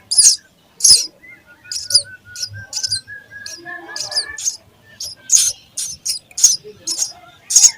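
Sparrows chirping: a rapid run of short, high chirps, about two to three a second, with a faint thin whistle drawn out through the middle.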